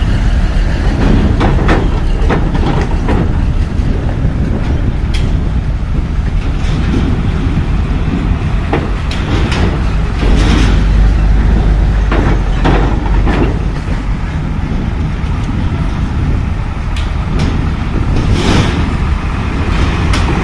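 Heavy diesel trucks rumbling as they drive off a ferry across a steel ramp, with repeated clanks and a few short hisses as they pass close by.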